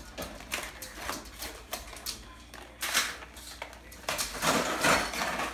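Cardboard and plastic toy packaging rustling and crinkling as it is handled, with small clicks and taps throughout and louder crinkles about three seconds in and again near the end.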